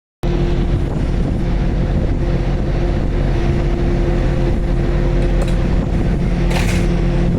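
Diesel commuter-rail locomotive engine running with a steady, loud drone as the train pulls into the station, with a short burst of hiss about six and a half seconds in.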